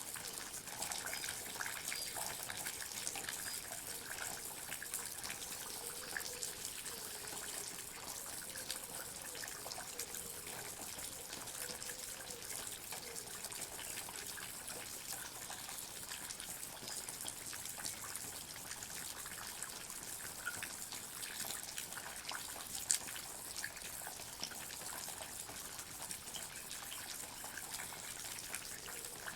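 Water drops falling in a forest: a steady trickle and patter of many small drips, with one sharper drop about three quarters of the way through.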